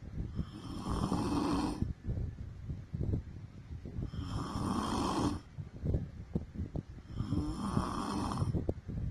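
A woman snoring in her sleep: three long snores about three seconds apart, each lasting over a second, with short crackling clicks in the breaths between.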